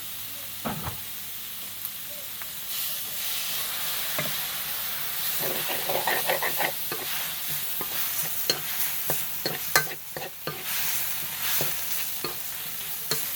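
Chili paste and minced pork frying in a wok, sizzling with a steady hiss while being stirred. A spatula scrapes and taps against the pan in quick clicks, more often in the second half.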